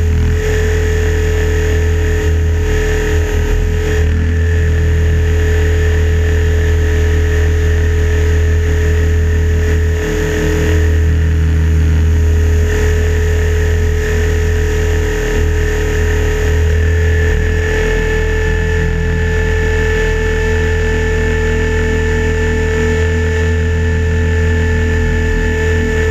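Electric RC helicopter (Align T-Rex 550) heard from its onboard camera: a steady high motor whine over the rotor's low drone, swelling slightly in level about halfway through as it flies.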